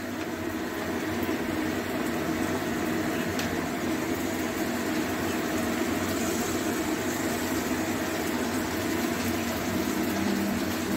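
Onions and capsicum frying in oil in a steel wok, a steady sizzle with fine crackle, over a steady low hum.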